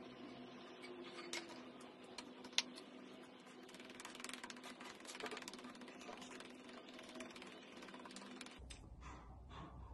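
Faint clicks and taps of makeup being handled (a cushion compact and small product tubes), with one sharp click about two and a half seconds in and a busier run of ticking a little later, over a low steady hum. A low rumble comes in near the end.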